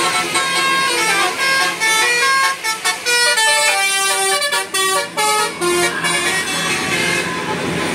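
A tour bus's telolet musical horn playing a quick melody of short, stepped notes that start and stop sharply. The tune dies away about seven seconds in.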